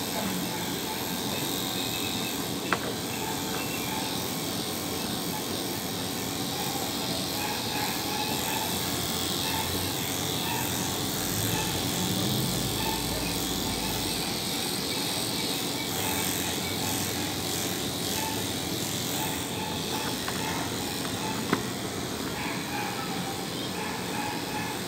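Corded electric pet clippers running steadily as they shave a dog's coat, with a sharp click about three seconds in and another near the end.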